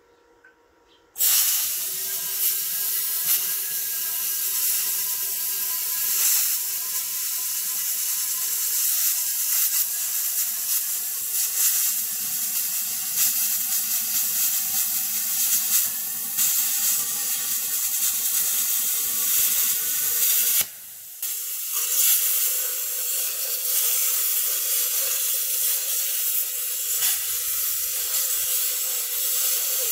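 Handheld plasma cutter cutting through a car's rear subframe: a loud steady hiss with a few steady whining tones in it. It starts about a second in, cuts out briefly about two-thirds of the way through, then carries on.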